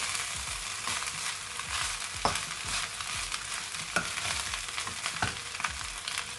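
Fried rice sizzling in a hot oiled pan while it is stirred, with a steady frying hiss and a utensil knocking against the pan a few times.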